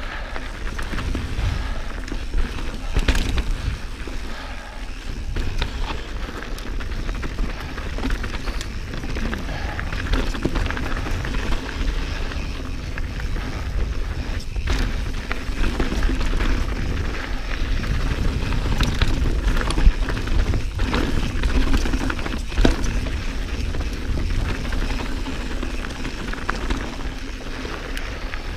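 Santa Cruz Bronson mountain bike riding over a rocky trail: wind rumbling steadily on the camera microphone, with frequent knocks and rattles from the bike and tyres hitting rocks.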